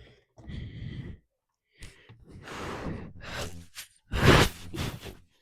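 A man's heavy breathy sighs close to the microphone, three in a row, the last one the loudest.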